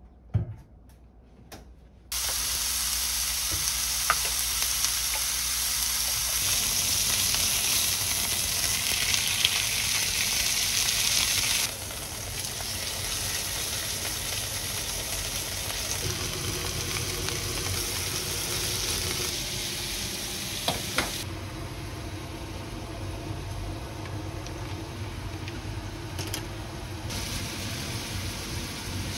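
Beef frying in a hot pan: a steady sizzle that starts about two seconds in, with a few sharp clicks over it.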